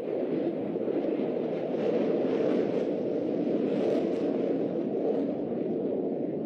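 Jet noise from a JF-17 Thunder fighter's single RD-93 turbofan as it flies its display, a continuous rough roar with a crackling edge that swells in the middle and eases toward the end.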